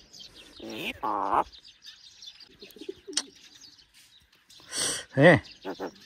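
Pet myna calling: a pitched call about a second in, a short rough hiss, then a loud call falling in pitch near the end.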